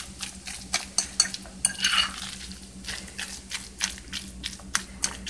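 A fork stirring and mashing a thick salmon croquette mixture in a glass bowl, with irregular clicks and scrapes of the fork against the glass.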